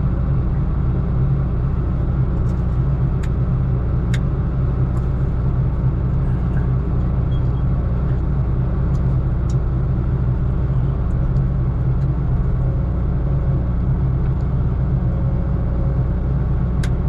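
Heavy diesel engine idling steadily with a deep, even drone, with a few faint clicks or knocks over it.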